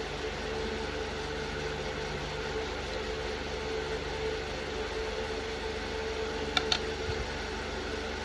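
Steady mechanical background hum with a couple of light clicks about six and a half seconds in.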